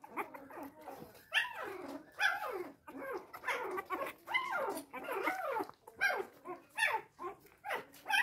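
Newborn Labrador puppies crying: about a dozen short high squeals and whines, each falling in pitch, coming one after another.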